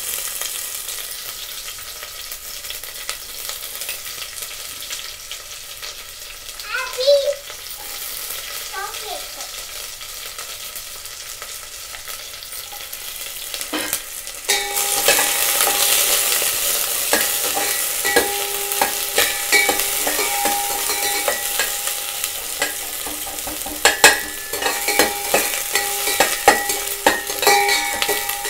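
Sliced onions sizzling in hot oil with cumin and mustard seeds in a stainless steel pot as they are stirred. The sizzle gets louder about halfway through, with sharp knocks against the pot near the end and a brief chirping sound about a quarter of the way in.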